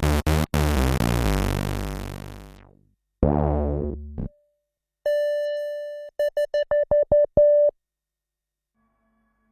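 Yamaha CS01 analog monosynth played dry, straight from the synth. A few quick buzzy notes give way to a bright, rich note that fades out over about two and a half seconds, then a short low note. Near the middle comes a thinner, purer tone held for about a second, then a run of about eight quick staccato repeats at the same pitch.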